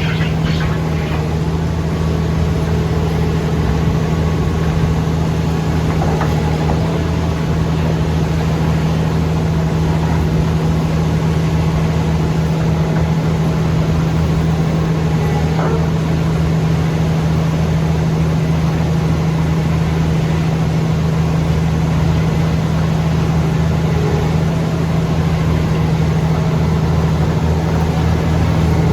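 Diesel engine of a Dynapac SD2550C asphalt paver running steadily, a constant low hum with no change in pitch.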